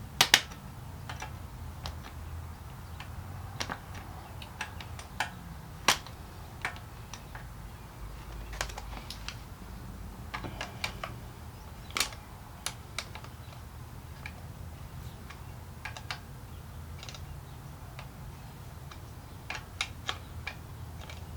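Scattered sharp clicks and clinks of hand tools and small metal engine parts being handled during reassembly, some in quick clusters, over a low steady hum.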